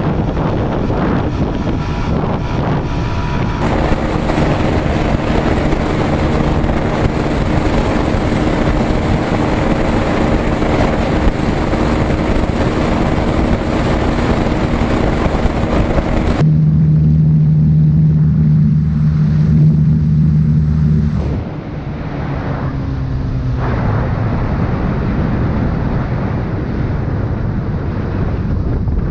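Single-cylinder 150–160 cc motorcycle engines held at high, steady revs near top speed, with heavy wind rush on the microphone. The engine note changes abruptly in pitch and level several times.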